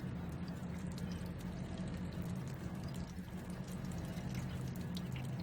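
Steady low hum with faint, irregular pattering of acid solution dripping from a leaking radiator core.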